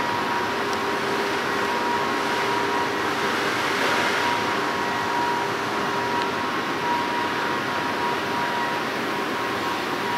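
Electric inflation blowers running: a steady rush of air noise with a few steady humming tones held through it.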